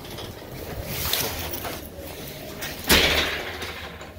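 A glass entrance door swinging shut with one sharp thud about three seconds in.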